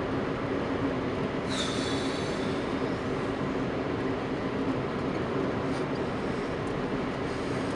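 Car engine and tyre drone heard from inside the cabin while driving at steady speed. A brief high-pitched squeal comes about a second and a half in, with fainter high squeaks later.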